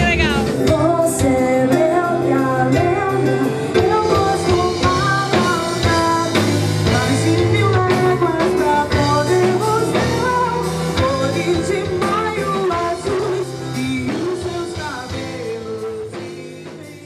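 A live band plays a song: a woman sings lead over guitar, bass and drums. It fades out near the end.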